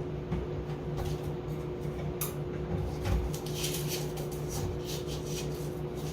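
Items being handled and taken off shelves: light knocks, clicks and rustles, busiest in the second half, over a steady low hum.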